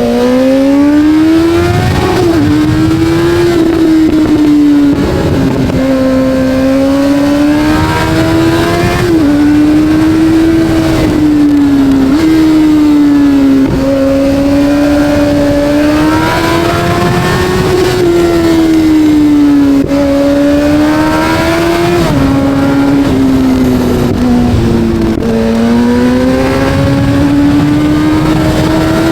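Kawasaki Z900 inline-four engine under riding load, its note rising and falling steadily as it accelerates and eases off, with sudden pitch changes at each of several gear shifts.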